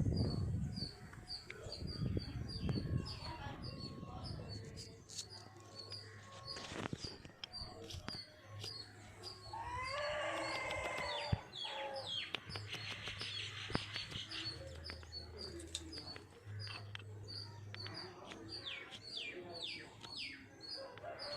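Outdoor birdsong: one bird repeats a short high chirp about two or three times a second throughout, with other scattered bird calls around it.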